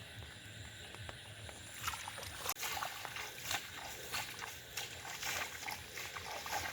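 Hands splashing and sloshing in shallow water, groping for fish: a run of irregular splashes that starts about two seconds in.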